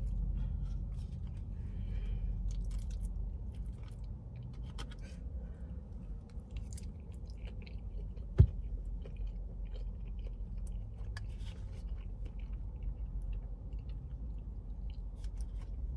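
A person chewing a mouthful of cheese-and-bacon-topped fries, with scattered small clicks and one sharp click about eight seconds in, over a low steady rumble inside a car.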